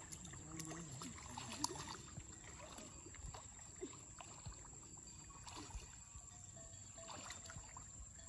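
Quiet pond water sloshing and lapping as people wade through it dragging a fishing net, with scattered small splashes.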